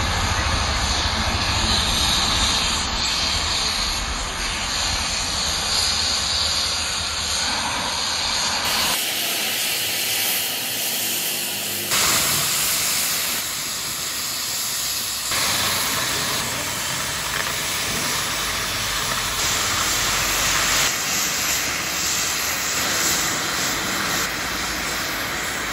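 Oxy-fuel cutting torches hissing steadily as they burn through thick steel plate. There are a few abrupt shifts in tone and level.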